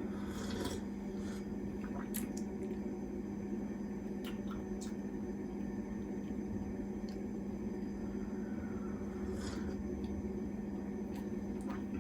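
Room tone: a steady low hum, with a few faint clicks and small handling sounds.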